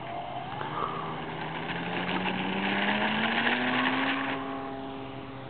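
Small electric RC model Cessna taking off: its motor and propeller whine rises steadily in pitch as the throttle is opened. Over it is a loud rough hiss from the small wheels rolling on asphalt, which stops at lift-off about four seconds in.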